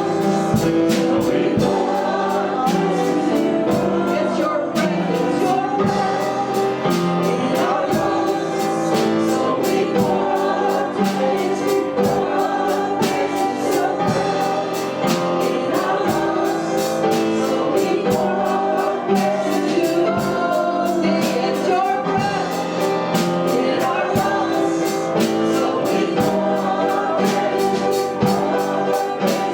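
Worship music: a group of voices singing a praise song together over a band, with a steady beat.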